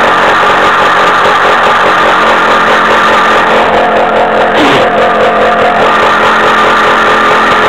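Off-road buggy's engine running loudly while driving along a rough track, with a brief dip in pitch about four and a half seconds in.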